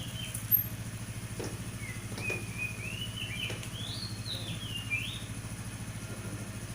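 Small birds chirping in short gliding calls over a steady low hum, with one sharp click about half a second in.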